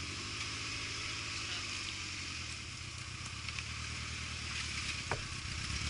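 An off-road vehicle's engine running steadily, with a fast even firing pulse. A short rising squeak comes about five seconds in.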